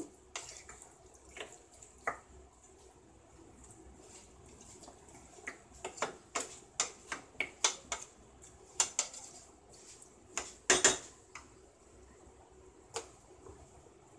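A spoon scraping and knocking against a nonstick pan as chicken and taro pieces are stirred in thick masala: irregular clicks and scrapes, busier in the second half, with the loudest knocks about three-quarters of the way through.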